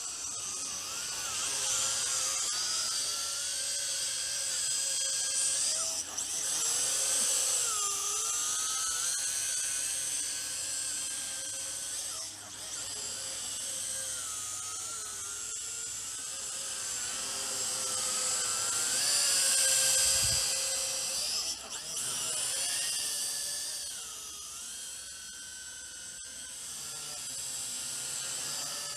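UDI RC U829A quadcopter's electric motors and propellers whining in flight, the pitch rising and falling as the throttle changes.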